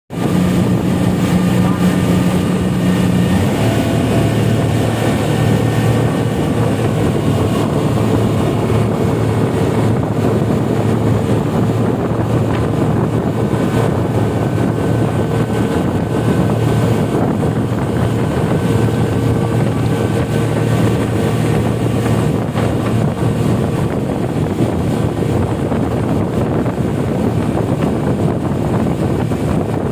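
Speedboat engine running steadily underway, with wind buffeting the microphone. The engine note shifts slightly about three and a half seconds in.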